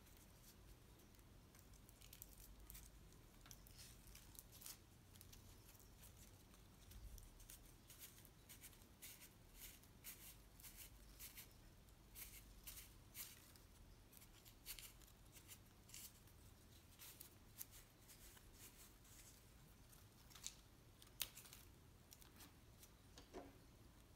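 Faint rustling and crinkling of crepe paper as it is wound by hand around a lollipop stick, coming as short, scattered crackles over a low room hum.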